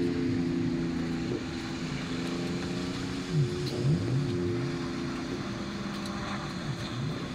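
Several racing jetboat engines running hard, a steady layered engine drone. A few seconds in, and again near the end, the pitch quickly dips and climbs back as the boats ease off for the buoy turns and power out of them.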